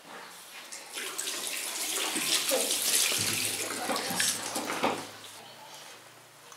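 Tap water running into a washbasin and splashing over hands being washed, starting about a second in and stopping about five seconds in.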